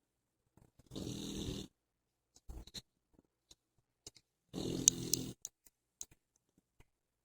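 Snoring: two long snores, one about a second in and another about four and a half seconds in, with a shorter, fainter breath sound between them.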